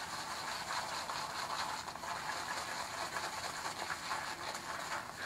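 Shaving brush swirling shaving cream around a lathering bowl, a steady rustling hiss as the lather is whipped up.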